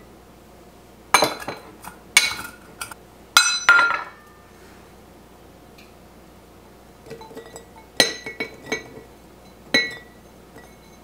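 Sharp clinks of a measuring cup and bowl knocking against the rims of glass mason jars as chopped celery is tipped in. There are several clinks in the first four seconds, a quiet pause, then another short cluster a little before the end.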